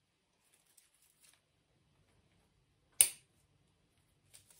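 Scissors snipping through dry phalaenopsis orchid roots: one sharp snip about three seconds in, with a few faint clicks and rustles before and near the end.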